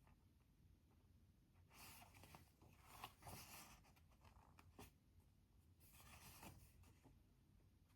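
Quiet desk sounds while studying: a few soft scratchy strokes about half a second to a second long, with a couple of light single clicks in between.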